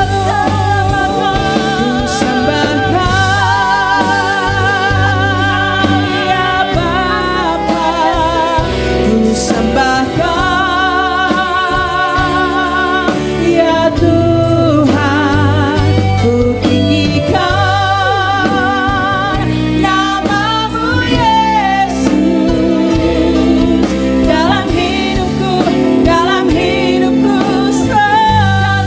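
Two women singing an Indonesian worship song into microphones, holding notes with a wavering vibrato, over electronic keyboard accompaniment.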